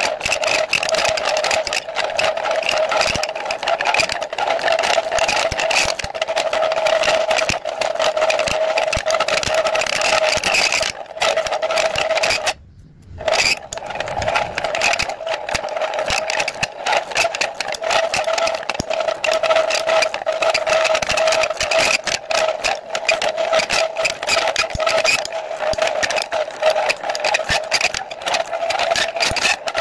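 Steel shaft being turned by a cutting tool on a motor-driven turning rig: a steady motor whine with a dense scraping crackle from the cut. The sound drops out for about a second midway, then carries on the same.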